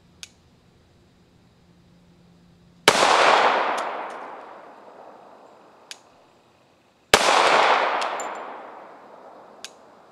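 Two shots from a Glock 21 Gen 4 .45 ACP pistol, about four seconds apart, each ringing out in a long echo that dies away over a couple of seconds. A few faint sharp ticks fall between and after the shots.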